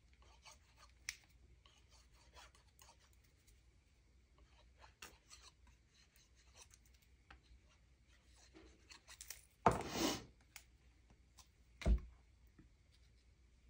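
Quiet handling of card stock on a glass craft mat: faint paper rustles and small clicks, a short scraping rustle about ten seconds in, then a single sharp knock as the liquid glue bottle is set down.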